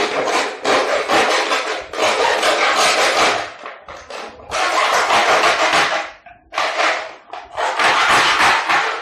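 Hacksaw blade sawing through a plastic jar by hand, in runs of strokes a second or two long with short pauses between them.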